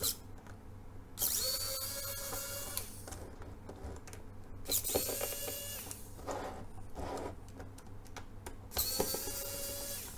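Wowstick 1F+ electric precision screwdriver driving small screws: its motor runs in three short steady whines of about a second and a half each, with light clicks between runs.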